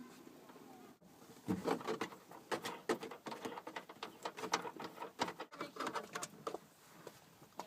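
Irregular rapid clicks, taps and small rattles of hands working plastic and metal fasteners on a car's tail light assembly, in two short takes.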